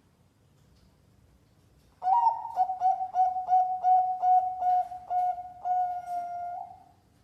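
Zebra dove (perkutut) singing: a quick series of short, even-pitched coos, about three to four a second, ending in one longer held coo. The song starts about two seconds in after a quiet pause.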